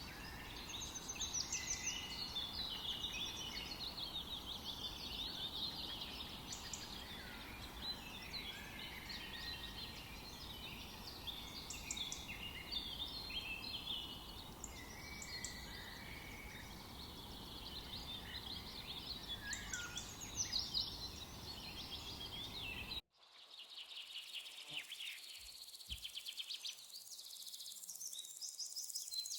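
Many small songbirds chirping and singing at once, short overlapping calls and trills over a steady low background rumble. About three-quarters of the way through, the background rumble cuts out suddenly and fewer, scattered chirps carry on.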